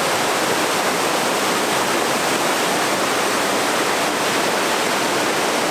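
Steady loud rush of river water pouring through a narrow rock gorge, the river swollen by heavy rain.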